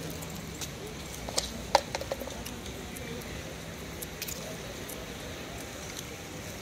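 Outdoor town street ambience: a steady background hush, with two sharp clinks about a second and a half in and a few lighter ticks after.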